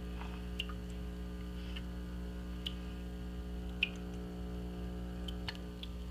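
Steady low electrical hum, with half a dozen faint scattered ticks and small water sounds as the submerged LED light tube is moved about in the water.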